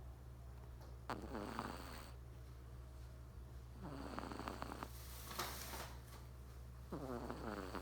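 A three-month-old Persian kitten snoring: three snores about three seconds apart, each falling in pitch over about a second, with a hissing breath between the second and third.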